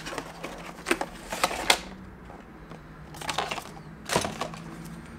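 Cardboard box and clear plastic packaging being handled during an unboxing: the inner box slid out of its sleeve and the plastic case taken out, a scatter of sharp clicks, taps and scrapes, loudest about a second and a half in and again around four seconds in.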